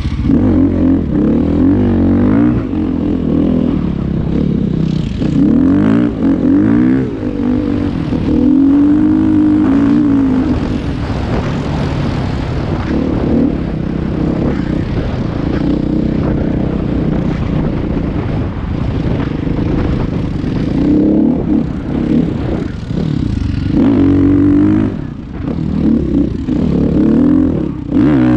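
A motor vehicle engine running under a rider's control, its revs rising and falling again and again.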